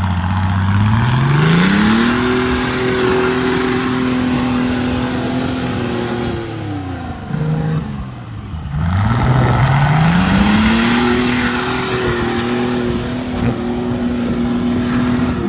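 BMW M57 3.0 straight-six turbodiesel in a Nissan Patrol Y61 revving up and held at high revs for several seconds, dropping back about six seconds in. It revs up again about nine seconds in and holds high, over a steady rushing noise.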